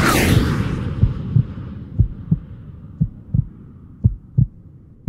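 Heartbeat sound effect: paired low thumps, lub-dub, repeating about once a second. A crash-like wash of noise at the start fades away over about three seconds.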